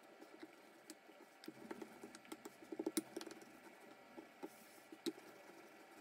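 Rolling pin flattening a ball of yeast dough into a round: faint scattered taps and clicks, with a quick run of soft knocks in the middle.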